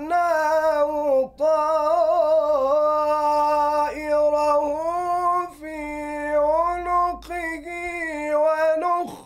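A young man reciting the Quran in melodic tajweed style: long, drawn-out, ornamented vocal lines that waver around held notes. He breaks for breath about a second in and again just before the end.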